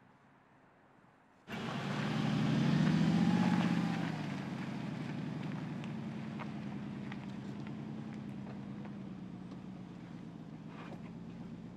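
Mercedes-Benz G 500's 4.0-litre V8 biturbo engine pulling at low speed off-road. It cuts in suddenly about a second and a half in, its pitch rises and falls briefly, and then it settles into a steady drone with a few faint ticks.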